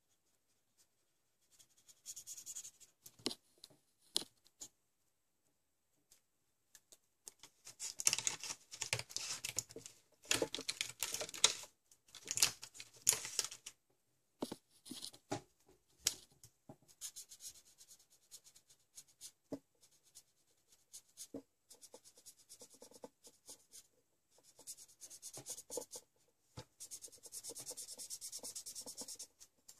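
Felt-tip marker scratching across paper in short strokes, with clicks and rustling as the art supplies and paper are handled. The loudest stretch is a few seconds of louder rustling and knocking about a third of the way in. Near the end comes a steadier scratchy run of marker strokes.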